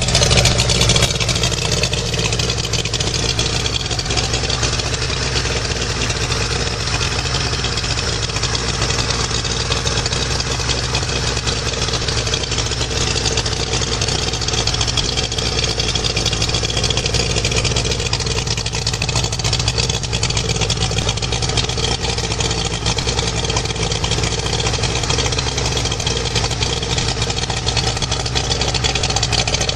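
1995 Mercury Tracker 60 two-stroke three-cylinder outboard, cowling off, running steadily at idle.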